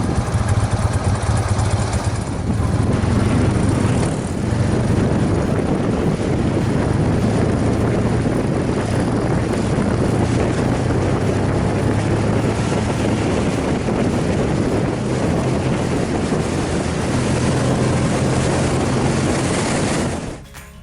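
BMW air-cooled flat-twin (boxer) motorcycle engine running under way, a steady engine note with a broad rush of noise over it; the level dips briefly about two and four seconds in.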